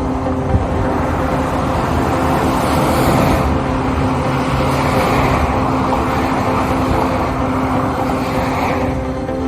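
Car interior driving noise: a steady low rumble of engine and road with a constant hum, and swells of hiss every few seconds.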